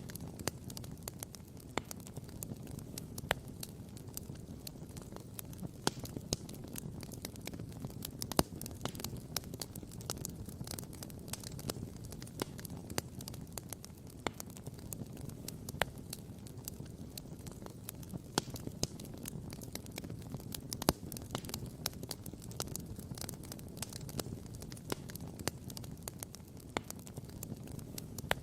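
Wood campfire burning, with many sharp crackles and occasional louder pops over a steady low rumble.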